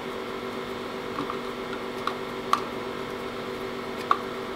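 Small sharp clicks and ticks of a screwdriver working a screw terminal, four or five of them, the loudest about two and a half and four seconds in, over a steady background hum.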